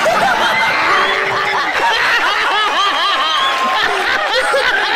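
A group of people laughing loudly, many overlapping voices in quick rising-and-falling bursts of laughter.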